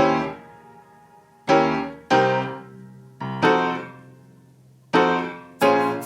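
Background music: electric piano chords struck one at a time, each fading out before the next, about every second or so.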